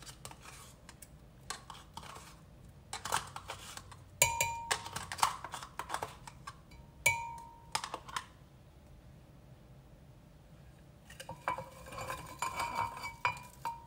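Kitchen clatter at a glass blender jar: taps and knocks as plain yogurt is emptied in, with two short clinks that ring on the glass. Near the end, a run of clinks and taps as mango pieces are tipped into the jar.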